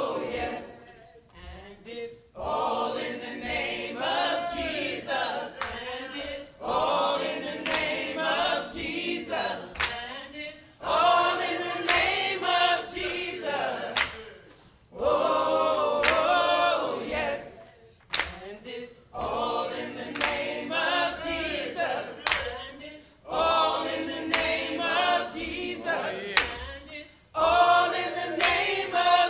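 Gospel choir singing in phrases a few seconds long, with short pauses between them.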